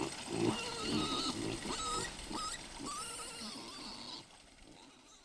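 Pigs grunting in short, repeated grunts, with higher-pitched calls over them; the sound fades out near the end.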